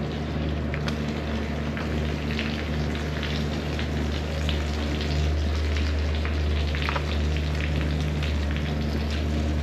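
Footsteps of rubber boots and cow hooves squelching on a wet, manure-slick concrete barn alley, heard as a dense crackling over a steady low hum.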